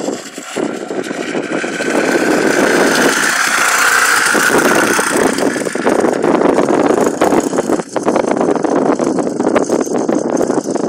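Small engine of a child's mini motocross bike running as it rides off over rough ground, its note rising and getting louder about two seconds in and holding for several seconds.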